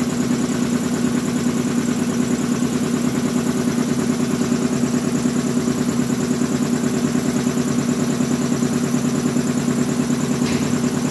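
Ingersoll-Rand air compressor running steadily, its electric-motor-driven piston pump making a rapid, even pulsing.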